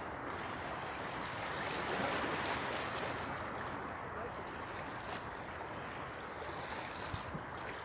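Sea washing against shoreline rocks: a steady rushing wash that swells a little about two seconds in.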